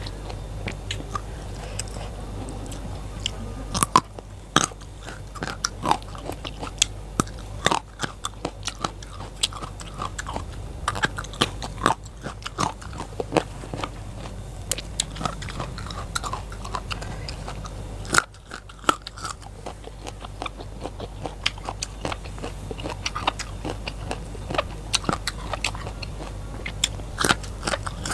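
Close-up crunching and chewing of raw vegetables: many crisp bites and chews at an uneven pace.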